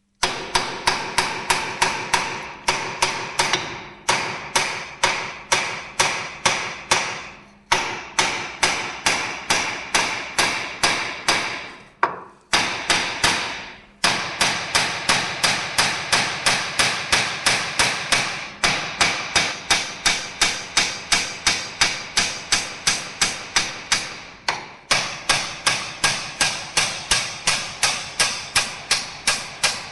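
Hand hammer striking steel suspension parts over and over, quick even blows about three a second with a metallic ring after each, stopping briefly a few times and then carrying on. It is the hammering used to drive out or seat a ball joint on the front axle.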